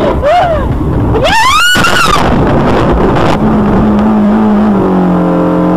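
Car sliding off a snowy road and ploughing into the roadside snow bank: a loud, continuous rush and scrape of snow against the car. A pitched shriek rises and falls about a second and a half in, and a steady low held tone sounds over the last two seconds.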